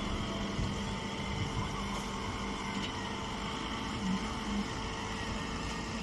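Round baler running with a steady mechanical hum while baling cardboard.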